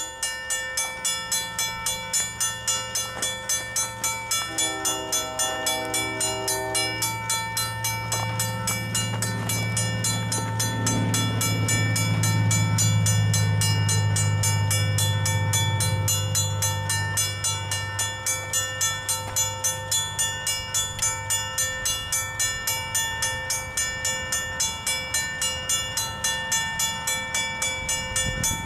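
Safetran mechanical railroad-crossing bell ringing steadily, its gong struck about two to three times a second, sounding with the activated crossing signals. A deep rumble swells up and fades away in the middle, with a few brief tones about five seconds in.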